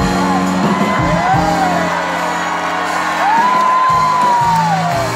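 Live stage performance heard from the audience: a high voice sings long notes that glide up and down over a backing track with steady low bass tones.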